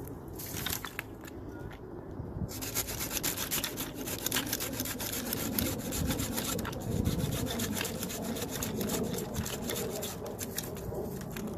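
Silky Pocket Boy folding pull saw cutting through a tree branch in rapid back-and-forth strokes. The strokes come thickest from about two seconds in and thin out near the end as the cut is finished.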